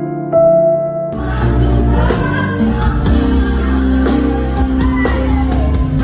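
Soft piano notes, then about a second in an abrupt switch to live band music with a woman singing into a microphone over heavy bass.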